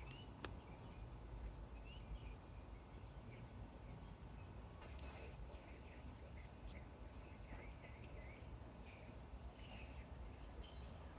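Small songbirds chirping faintly and on and off over a low steady background rumble. Four sharp, high chirps come about halfway through and are the loudest sounds.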